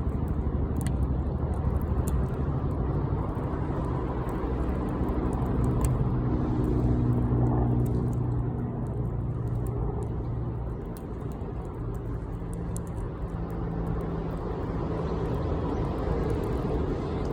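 Bonfire crackling, with scattered sharp pops over a steady low rumble that carries a faint hum.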